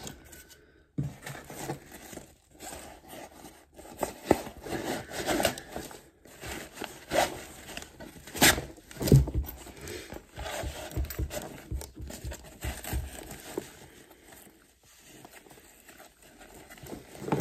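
Nylon gear being handled: rustling and scraping of fabric as a flat black case is slid into a plate carrier's zippered admin pouch. Irregular sharp clicks and knocks come through it, the loudest about halfway through.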